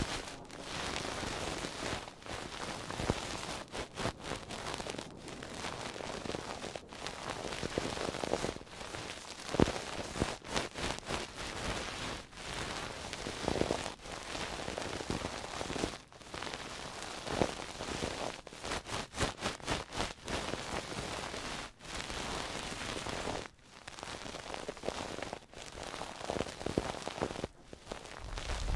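Close-miked ASMR trigger sound: an object rubbed and scratched against the microphone, giving a dense crackling, rustling noise that breaks off and starts again every second or two.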